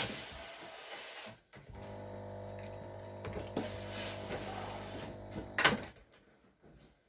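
Steam generator iron in use: a hiss of steam at first, then the base unit's pump buzzing steadily for a few seconds. It ends with a sharp knock as the iron is set down on its base.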